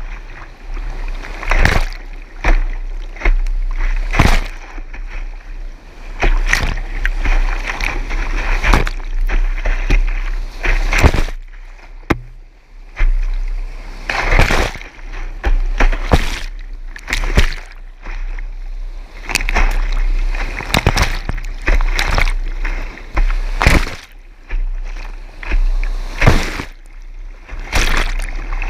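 Big-water whitewater rapids of the Rio Grande at high flow, rushing and crashing. A kayak punches through the waves, and water splashes and washes over a bow-mounted action camera in irregular loud surges.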